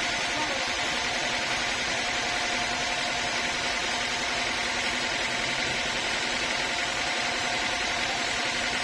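Sawmill machinery running steadily, a constant mechanical hum and hiss with a faint steady whine.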